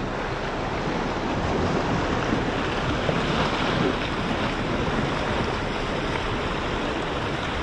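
Steady wash of ocean surf breaking on the jetty rocks, with wind on the microphone.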